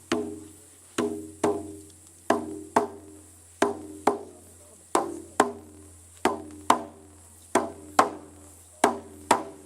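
A drum struck in a heartbeat rhythm: paired beats, the second following about half a second after the first, with each pair coming roughly every 1.3 seconds.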